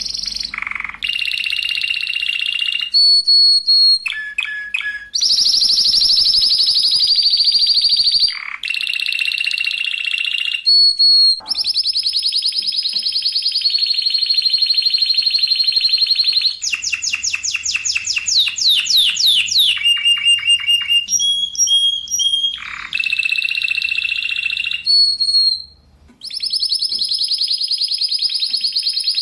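Spanish Timbrado canary singing a string of rapid rolling trills, each held from about a second to several seconds and split by short pauses. There is a run of fast swooping notes midway and a brief break near the end.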